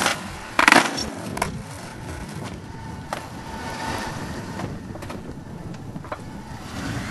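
Skateboard wheels rolling on tarmac, with a loud clatter a little under a second in as the board hits the ground, then a few lighter knocks.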